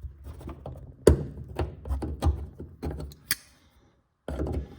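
Irregular knocks and clicks of hand tools working at a stubborn handbrake cable clip, about one every half second, with one sharp click about three seconds in.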